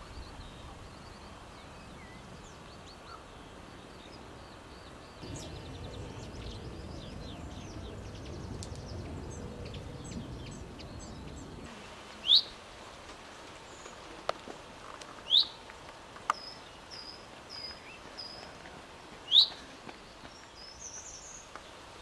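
Songbird calls: three loud, sharp rising notes a few seconds apart, with strings of short high chirps and a brief trill between them. Fainter chirping sits over low background noise in the first half.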